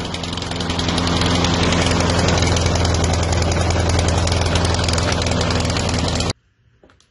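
Briggs & Stratton 675 Series single-cylinder engine on a walk-behind lawn mower running steadily, cutting off abruptly about six seconds in.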